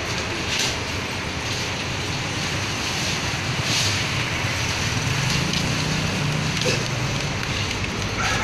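Steady din of vehicle engines and traffic, with a low rumble and a few faint brief rustles.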